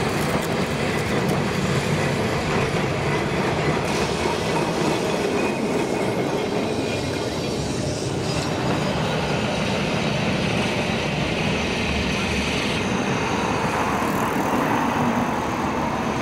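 Open-top heritage tram running along street track, its steel wheels rumbling and clattering on the rails in a steady, continuous noise.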